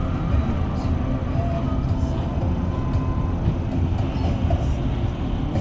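Steady low rumble of a moving car heard inside its cabin, with tyre hiss from the wet road.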